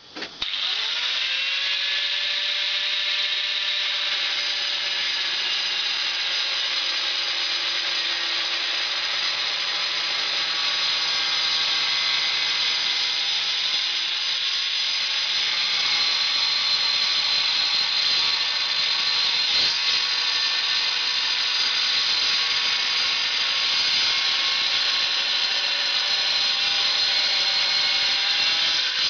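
Hand-held angle grinder with a diamond blade starting up with a rising whine, then running steadily as it cuts along a tile.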